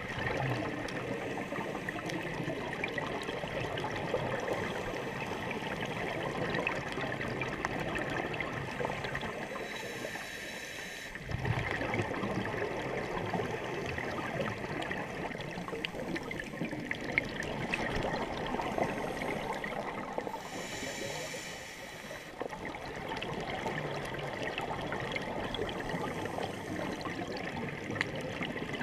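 Underwater sound through an action camera's housing: a steady muffled wash of water noise. The bubbling of a scuba diver's exhaled breath comes and goes about every ten seconds.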